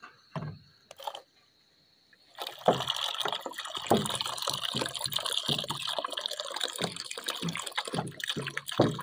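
Water poured from a plastic bottle into a shallow dish, a steady splashing pour that starts about two and a half seconds in, after a couple of light knocks.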